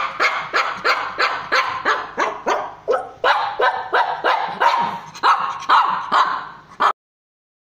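Shih Tzu barking rapidly and repeatedly in short, high yaps, about three a second, cutting off abruptly about seven seconds in.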